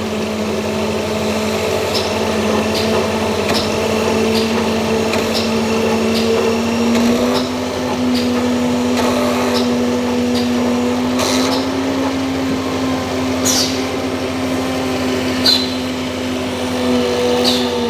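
Electric machine motor running at a steady pitch, with light ticks about once a second.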